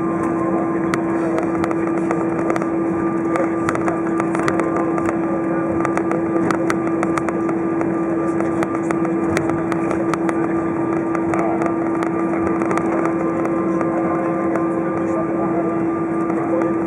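Cabin noise of an Airbus A320 taxiing on the ground with its engines at idle: a steady drone with one strong low tone running through it, and scattered light clicks.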